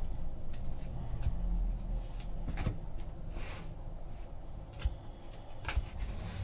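Trading cards and card packs being handled on a table: scattered light clicks and taps, with a short rustle about halfway through.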